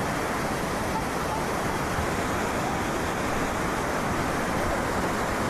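Steady rush of river water, an even noise that holds at one level throughout.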